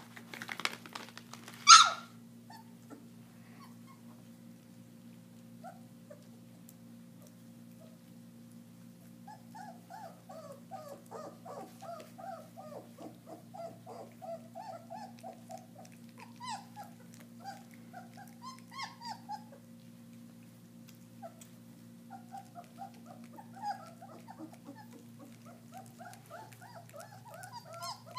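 A litter of young German shepherd puppies whimpering and squeaking: many short, high cries that rise and fall, coming in two long runs, with one brief loud sound about two seconds in.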